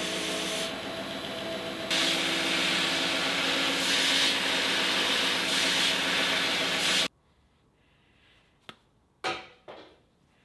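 Belt grinder running with steel being ground against the belt: a steady motor hum under a gritty grinding hiss that grows louder about two seconds in. The sound cuts off abruptly about two-thirds of the way through, leaving a few short faint knocks.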